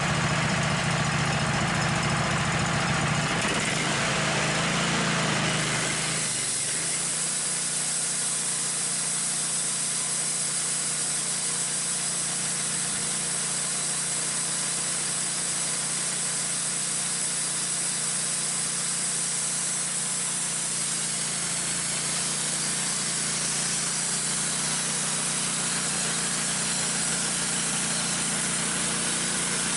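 Wood-Mizer LT15 sawmill's gas engine running steadily as it warms up. About six seconds in, the low engine drone weakens and a steady high hiss takes over.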